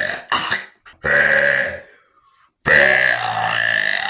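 Loud deliberate burps: a short one just after the start, then two long drawn-out belches of about one and one and a half seconds. They are forced by gulping air with a drink.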